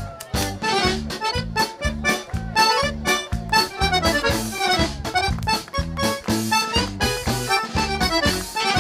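Accordion-led dance music in the Romagna liscio style, with rapid melody notes over a quick, steady bass beat.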